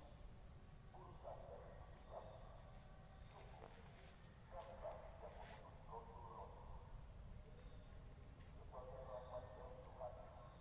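Faint, steady high-pitched drone of insects in the surrounding vegetation. Three brief patches of fainter, mid-pitched calling or voices come through about a second in, in the middle, and near the end.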